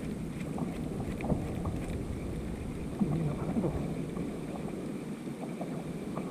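Water lapping and sloshing against a kayak hull on the open sea, with wind on the microphone and a few small knocks.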